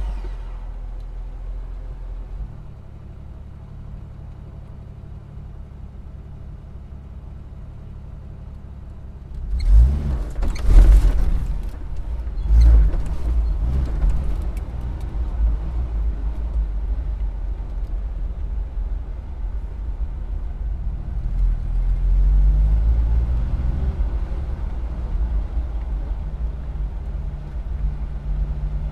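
Car engine idling, then about nine and a half seconds in it revs and the car pulls away, the engine pitch rising and dropping a few times through the gears, before running on steadily while driving, climbing again a little past the twenty-second mark.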